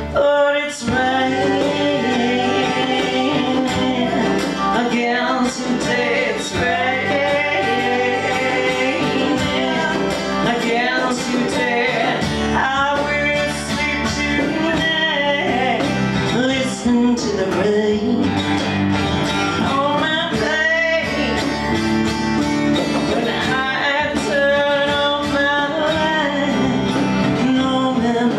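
Live acoustic band in a country style: a woman singing over strummed guitars.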